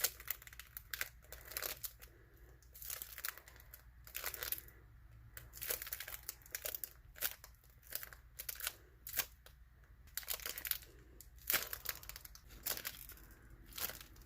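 Crinkly rustling and handling noises in short, irregular bursts as a homemade squishy toy is squeezed and turned in the hands.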